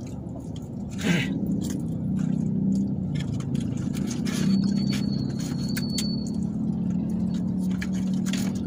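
Steady low hum inside a car cabin, with a paper food wrapper crinkling and chewing sounds over it. A faint high tone sounds for about two seconds midway.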